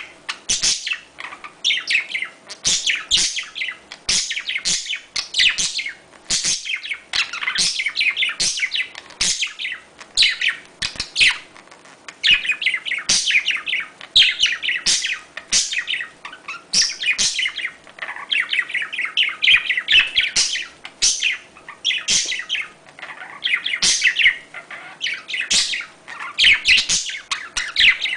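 Budgerigars chattering in quick, dense bursts of high chirps and warbles, about one burst a second with short pauses between: the breeding-call chatter played to get budgies in the mood to mate.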